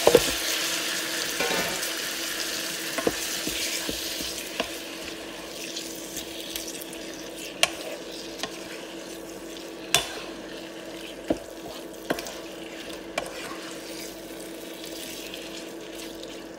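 Sliced raw beef dropped into a hot frying pan of butter, onion and garlic, sizzling loudly as it lands and then settling to a quieter, steady sizzle while it is stirred with a wooden spatula that knocks sharply against the pan several times. A steady hum runs underneath.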